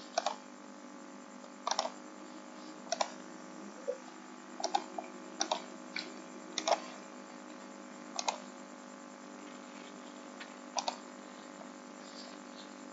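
Computer mouse clicking at irregular intervals, some single clicks and some quick double-clicks, over a steady low hum.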